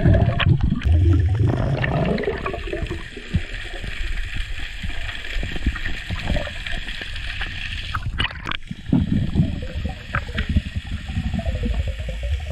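Underwater water noise heard through a submerged action-camera housing: a steady muffled rushing and gurgling of water as the diver moves. A couple of sharp knocks about eight seconds in.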